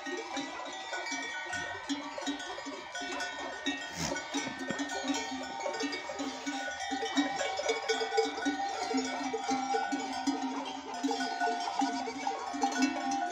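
Many goat bells worn by a grazing herd, clanking and ringing together without pause as the animals move, with goat kids bleating among them.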